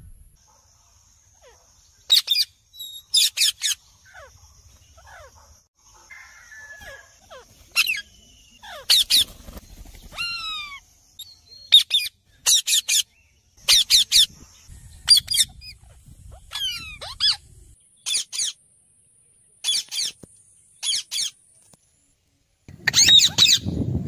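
Caged parakeets giving repeated short, shrill screeches, often in quick pairs, with a few softer falling chirps between and a louder run of calls near the end.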